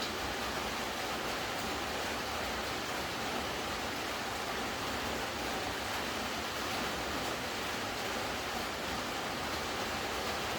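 Steady rain falling: a continuous, even hiss.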